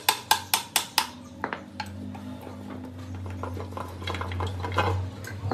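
Hammer striking steel on a truck gearbox case: five sharp metallic clanks in quick succession in the first second, then a few weaker knocks and light clinks of metal parts as the housing is worked loose.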